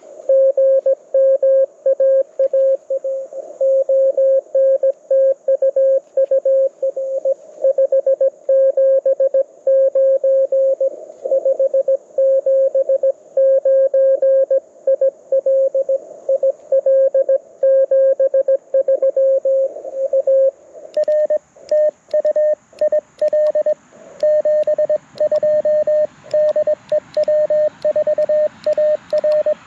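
Morse code (CW) tones from a Mountain Topper MTR4B V2 QRP transceiver: one steady, evenly keyed tone sends for about twenty seconds. Then a second keyed signal at a slightly higher pitch takes over, with band hiss behind it.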